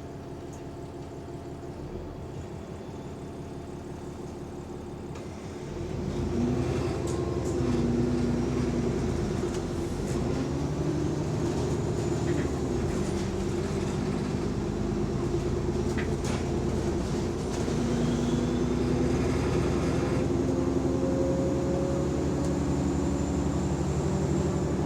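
A bus's diesel engine idles steadily, then about five seconds in the bus pulls away and the engine rises in pitch and drops back several times as it works up through the gears. This is a bus with a small exhaust leak.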